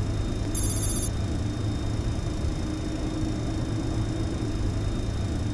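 Steady low hum of a Boeing 737-800 flight deck at the stand, with a brief high-pitched electronic burst about half a second in and a faint steady tone coming in from about two and a half seconds.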